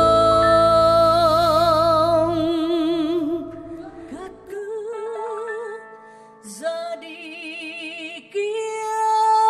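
Female vocalist singing a slow Vietnamese ballad with a jazz big band: a long held note with vibrato over a sustained band chord, which ends about two and a half seconds in. She then sings on softly in short phrases with wide vibrato as the band drops away.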